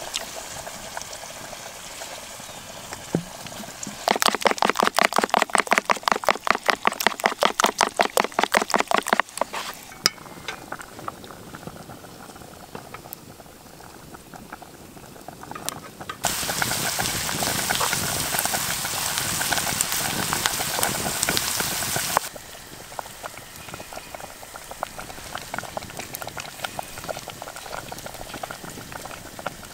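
Cooking pot hung over a wood campfire, boiling and bubbling. About four seconds in comes a run of fast, even strokes, about five a second, for some five seconds. From about sixteen to twenty-two seconds a loud steady rush of bubbling starts and stops suddenly.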